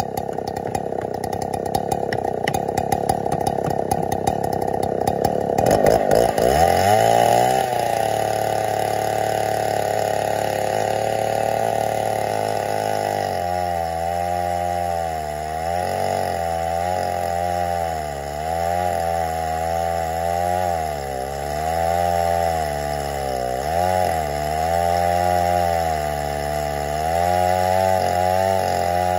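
Chainsaw mounted in an Alaskan mill running while ripping a slab off an oak round. About six seconds in, its engine note drops and settles. From about thirteen seconds the pitch repeatedly sags and recovers as the saw loads up in the cut.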